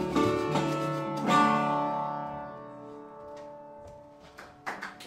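An acoustic blues band's closing guitar chord, struck about a second in, rings out and fades away. Audience clapping starts near the end.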